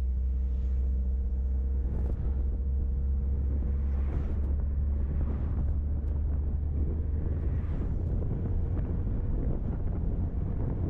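A car engine running with tyre and road noise while driving, a steady low hum, with wind noise on the microphone.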